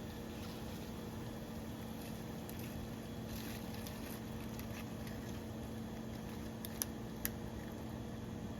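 Faint sizzling from food cooking on an electric hot plate, over a steady low hum, with two sharp clicks about half a second apart near the end.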